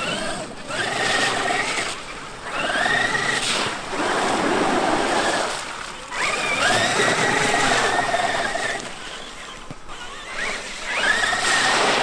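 Traxxas X-Maxx RC truck's brushless electric motor whining in repeated throttle bursts, about five of them. Each whine rises quickly in pitch and holds high for a second or more before dropping away, over the hiss of tyres on the ground.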